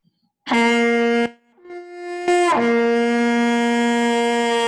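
Trumpet played solo, brassy: a short loud low note, then a softer higher note that swells and slides back down to the low note, which is held for about two seconds.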